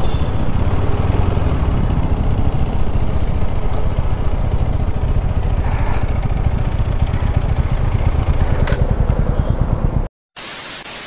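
Motorcycle engine running at low riding speed, heard from the rider's own bike. About ten seconds in, the sound cuts out suddenly and gives way to a flat static hiss.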